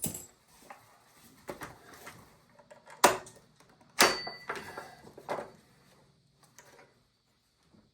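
A series of knocks and metallic clanks from chainsaw bar, chain and saw parts being handled and fitted. The loudest comes about three seconds in, and another a second later rings briefly; the rest is lighter clicks and rustles.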